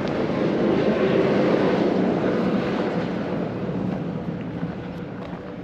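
A vehicle passing by: a steady engine and road noise that swells in the first second or two, then slowly fades away.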